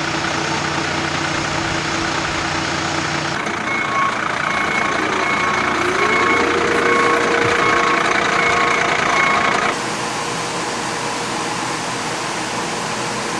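A heavy truck's engine running. From about three seconds in, a beeper sounds about once a second while the engine pitch rises and holds. The louder beeping part cuts off suddenly about ten seconds in, leaving the engine running steadily.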